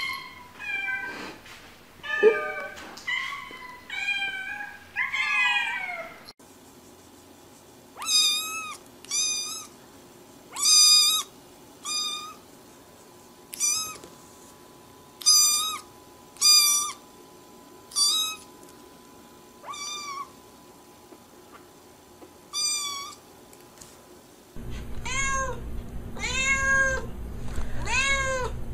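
Domestic cats meowing in three short clips. First comes a quick run of meows that slide up and down in pitch. Then a black kitten gives about a dozen short, high-pitched meows, and near the end a cat meows over and over with a low hum behind it.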